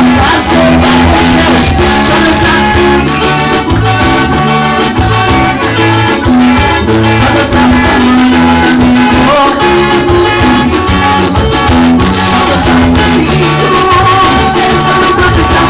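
Live upbeat gospel praise music with a steady beat, bass line and shaker rattling.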